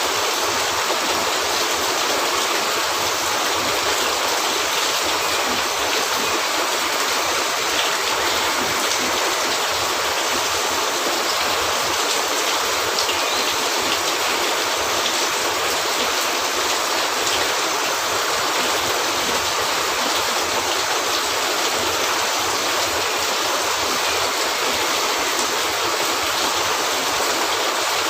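Steady rain falling as an even, dense hiss, with a few faint crackles of a wood fire.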